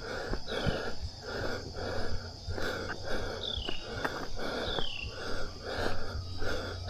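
A runner's heavy, rhythmic breathing close to the microphone, about two breaths a second, with footfalls ticking between the breaths. A faint high, falling chirp recurs every second or so.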